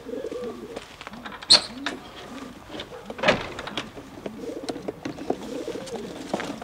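Racing pigeons cooing repeatedly in the loft. A sharp click comes about a second and a half in and a louder knock a couple of seconds later, as the loft door's bolt is worked.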